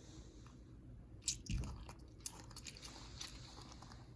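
A fidget toy being handled: faint scattered clicks and crackles, with a soft thump about a second and a half in.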